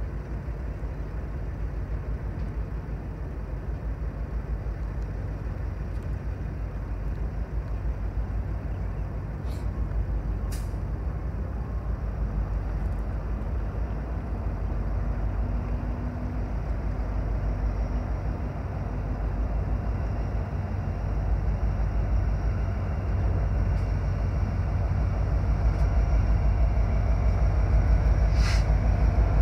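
Low, steady rumble of an approaching train that slowly grows louder, with a few sharp clicks.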